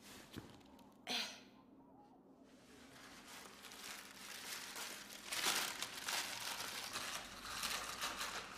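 Brown paper bag crinkling and rustling as it is handled and opened, growing louder partway through and most intense about halfway through. A short sharp rush of noise about a second in.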